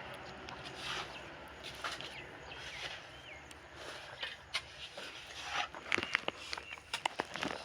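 Light knocks and taps of bricklaying work, with a quick cluster of sharp taps near the end, and a short warbling chirp a few seconds in.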